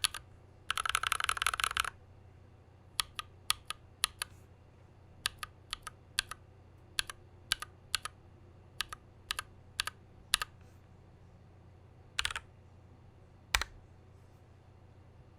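Typing on an IDOBAO ID80 mechanical keyboard with lubed, filmed Holy Panda tactile switches and PBT keycaps. It opens with a quick burst of rapid keystrokes, then single keypresses about two or three a second, a short cluster of presses, and one last sharp keystroke.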